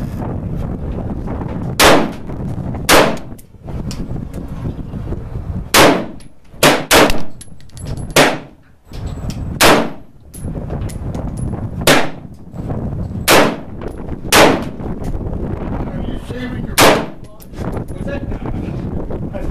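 AR-15 rifle with a .223 Wylde upper fired semi-automatically: about eleven single shots at an uneven slow pace, one to three seconds apart, with two in quick succession about seven seconds in. Steady wind noise underneath.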